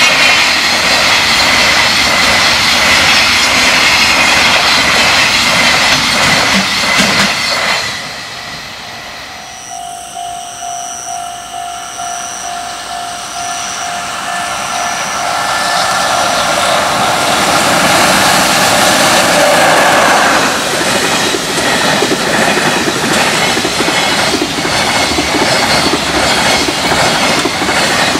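Freight trains rushing through a railway level crossing. The wagons' rushing rumble drops away about eight seconds in, leaving the crossing's warning bell ringing about twice a second; then the next freight train's noise swells and drowns the bell, and its wagons clatter past over the rail joints.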